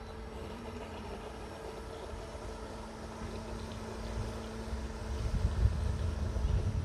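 Motors of radio-controlled model boats running on a pond, a steady hum. A low, gusty rumble of wind on the microphone grows louder in the second half.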